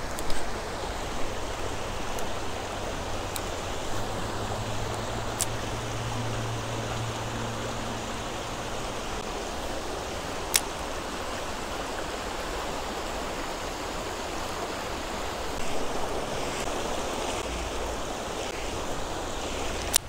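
Shallow rocky creek rushing steadily over a riffle, with a few faint sharp clicks and one louder click about ten seconds in.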